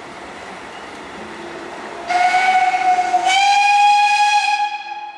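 A steam locomotive's whistle blows loudly about two seconds in over the steady rolling of passenger coaches. The whistle starts with a hiss, steps up slightly in pitch about a second later, holds, and fades out near the end.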